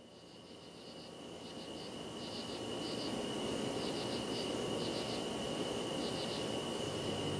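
Insects chirping in short groups of rapid pulses over a steady high whine and a hiss, fading in over the first few seconds.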